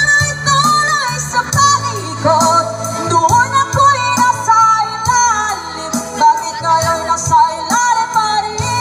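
A woman singing into a microphone over backing music, amplified through stage speakers.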